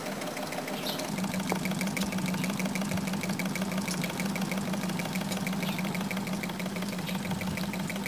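Small solar-powered Stirling (hot-air) engine running steadily while it drives a little piston water pump, a rapid, regular clicking of the mechanism over a low hum.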